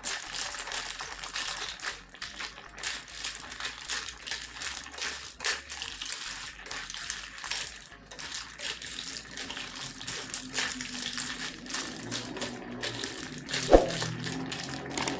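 Clam shells clattering and clicking against a metal pan or wok as they are stirred, in a dense run of irregular small clicks and rattles, with one louder knock near the end.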